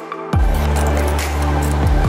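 Electronic background music with a heavy bass line; the bass drops out briefly and comes back about a third of a second in with a falling sweep.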